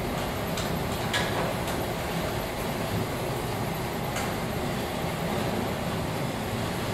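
Betts vertical turret lathe with its 108-inch table turning: a steady low mechanical running noise, with a few faint ticks in the first two seconds and once more about four seconds in.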